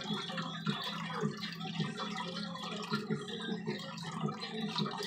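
Faint water trickling and dripping in an aquarium tank, over a steady low hum.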